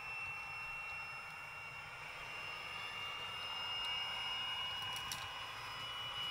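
OO gauge model InterCity 125 train running on the layout: a steady high whine that rises slightly in pitch, over a hiss and low rumble from the running train, with a few faint clicks near the end.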